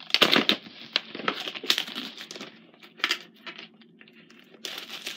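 A VHS tape case being handled: a string of plastic clicks and knocks with crinkling rustles, easing off for a moment before a rustle near the end.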